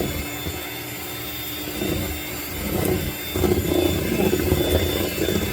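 Electric hand mixer running in a bowl of cake batter, beating in flour and milk; it gets louder about three seconds in.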